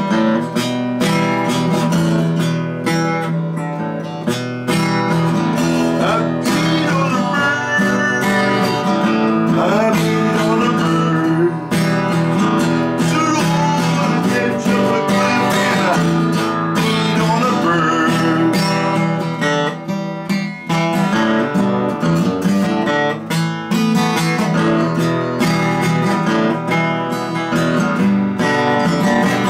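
Acoustic guitar played unplugged, strumming chords and picking a melody over them without a pause.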